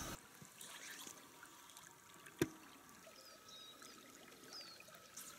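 Faint river water trickling, with a single sharp click about two and a half seconds in and a few faint high chirps near the middle.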